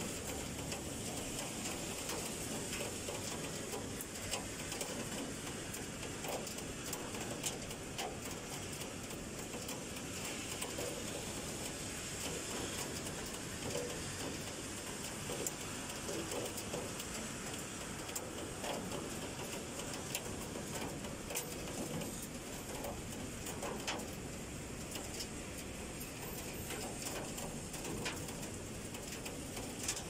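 Typhoon rain falling steadily: an even hiss dotted with many small, sharp drop impacts.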